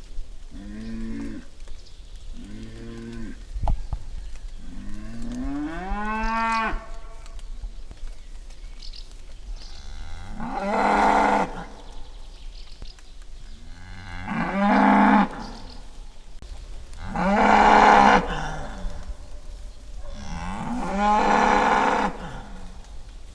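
Bull bellowing: two short low calls, then a longer call that rises in pitch, then four long, loud bellows a few seconds apart.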